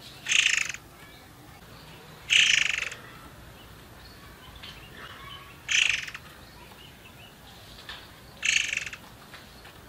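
Murai air songbird giving four short, bright, rapid call phrases, one every two to three seconds.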